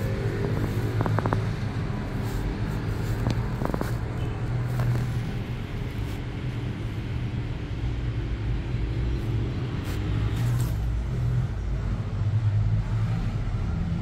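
Steady low rumble of a gondola lift cabin riding along its cable, heard from inside the cabin, with a few brief clicks.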